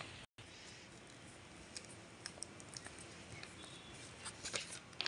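Hands handling a paper craft pouch edged with foil tape: light scattered clicks and rustles, with a cluster of sharper clicks about four and a half seconds in. The sound drops out completely for a moment near the start.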